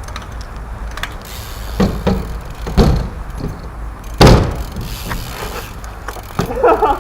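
Several sharp thumps and knocks, the loudest about four seconds in, over a steady low rumble.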